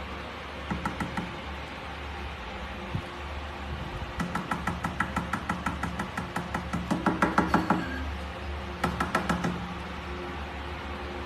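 Rapid knocking in three runs over a steady low hum, the middle run longest at about seven knocks a second.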